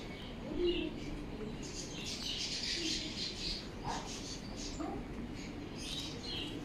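Small animals chirping and squeaking in short high-pitched clusters, densest about two seconds in and again near the end, over a steady low background hum.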